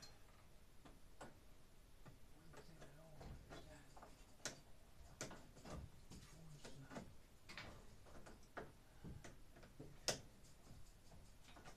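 Faint, irregular small clicks and light knocks from hands working on wiring and hardware overhead, about a dozen in all, with the sharpest about halfway through and again near the end.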